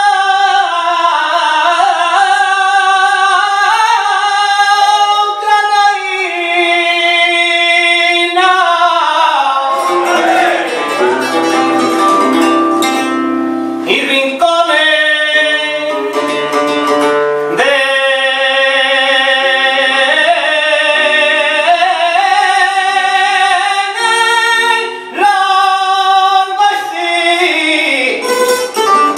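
Male flamenco singer singing a granaína, long ornamented notes that bend and waver, accompanied by a flamenco guitar. Near the middle the guitar comes forward with quick strummed and plucked passages.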